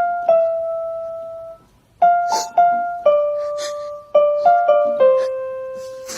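Piano playing a slow melody of single notes, each struck and left to ring and fade, with a few brief hissy sounds between the notes.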